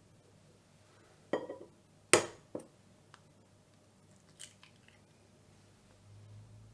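An egg being cracked open: a crunchy knock of shell, then a sharper, louder crack about two seconds in with a smaller one right after, followed by a few faint clicks of eggshell as the yolk is separated.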